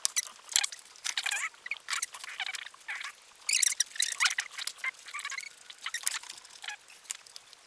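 Hands working inside a fabric film changing bag, making irregular rustling and sharp little clicks and scratches as 35mm film is handled and wound onto a plastic developing reel by feel.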